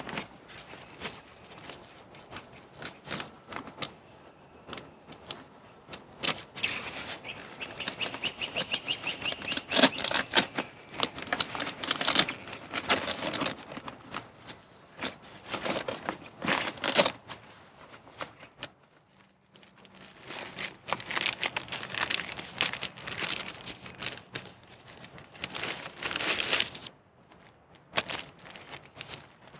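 Rustling and crinkling of a StreamTrail bag's fabric and plastic packaging as they are handled, with irregular clicks and knocks as things are shifted inside the bag. The handling comes in bursts and pauses briefly twice.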